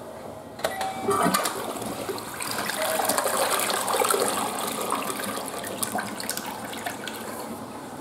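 Western-style toilet flushing. A sharp click comes about half a second in, then water rushes into the bowl and swirls down the drain. The flush is loudest in the middle and eases off toward the end.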